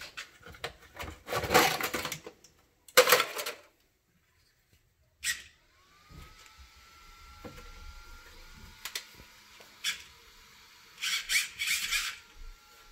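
Clicks and knocks of the RC truck being handled, then the Traxxas Rustler VXL's brushless motor spinning up with a rising whine that settles into a steady high whine, with a few more rattles near the end.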